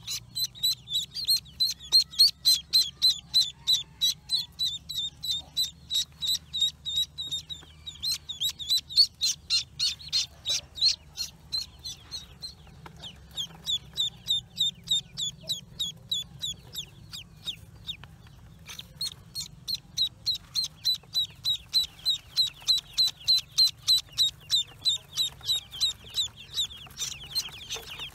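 Newly hatched ducklings peeping over and over, short high-pitched peeps at about four a second, with a couple of brief pauses.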